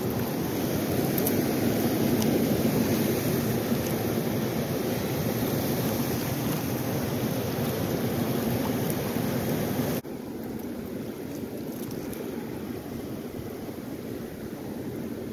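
Steady rush of a fast, high-running river flowing over rocks. About ten seconds in it cuts abruptly to a quieter stretch of the same rushing water.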